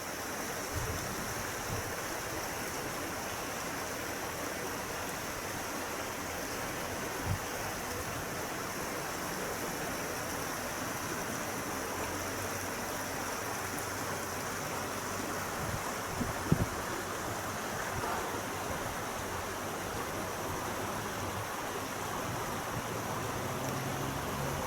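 Small river babbling steadily, an even rush of flowing water, with a couple of brief knocks around seven and sixteen seconds in.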